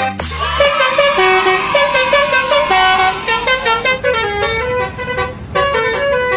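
Basuri telolet bus horn, a multi-tone horn, playing a fast tune of short notes that step up and down in pitch.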